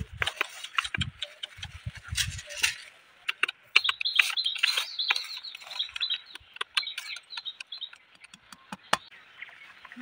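Rustling, clicks and light taps from hands working on leaf-littered ground and grass around a small bamboo bird trap, with a few dull bumps in the first few seconds. A high, rapid chirping runs in the background from about four seconds in to about eight seconds in.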